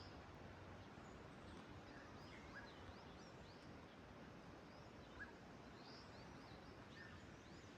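Faint, scattered chirps of small birds over a steady outdoor hiss.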